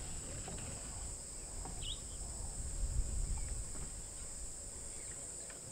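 Insects buzzing steadily and high-pitched in the bush, over a low rumble, with one short bird chirp about two seconds in.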